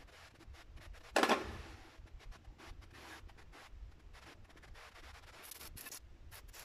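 Frying pan set down and shifted on a gas hob's grate, one short scrape about a second in, followed by faint scattered ticks and crackles.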